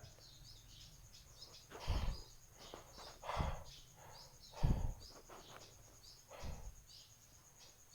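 Quiet outdoor film ambience with faint bird chirps, broken by four soft low thuds about one every second and a half.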